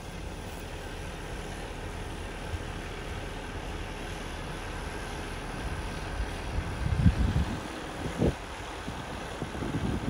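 New Holland combine harvester's engine running steadily nearby, with gusts of wind buffeting the microphone about seven seconds in and again near the end.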